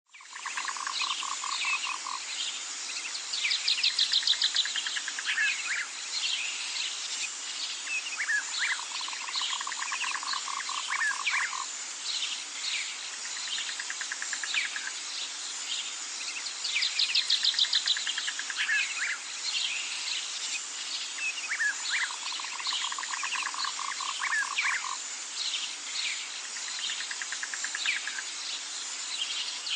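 Nature ambience of frogs, insects and birds: low pulsing trills, higher buzzy trills and scattered chirps over a steady hiss. The same sequence comes round again about every 13 seconds.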